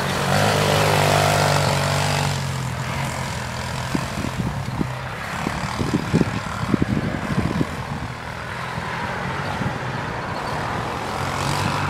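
A child's small quad bike engine running close by, then fading steadily as the quad drives away across the grass. A scatter of short knocks follows partway through.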